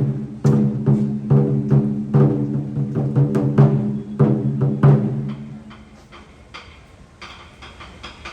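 Japanese taiko drums beaten in a steady rhythm, each heavy stroke leaving a deep, booming ring. About five seconds in, the playing drops to softer, lighter strikes.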